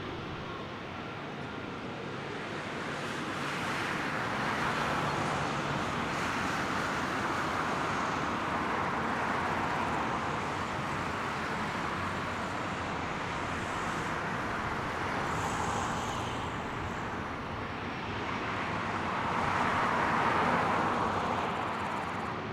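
Broad jet roar from a Boeing 737-900's engines during takeoff, heard from the ground. It swells a few seconds in and again near the end.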